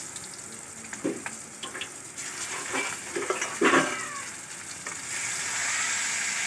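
Hot mustard oil hissing in a karahi, with metal spatula clinks on a steel plate. From about five seconds in a louder, fuller sizzle begins as turmeric-rubbed koi fish (climbing perch) pieces go into the oil to fry. A brief pitched cry cuts in near the middle.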